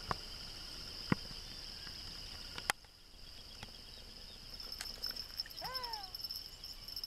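Crickets chirring steadily, with three sharp clicks in the first three seconds and a short rising-then-falling call near the end.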